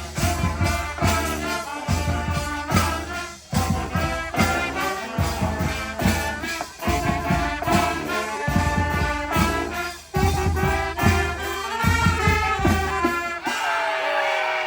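Street brass band playing an upbeat instrumental tune: trumpets and trombones over strong low bass notes in a steady beat. The playing breaks off near the end.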